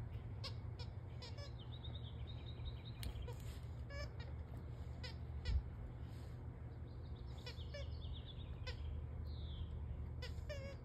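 Soccer-ball squeaky dog toy squeaking again and again as a dog chews it: many short squeaks and two longer wavering squeals. A dull thump about five and a half seconds in.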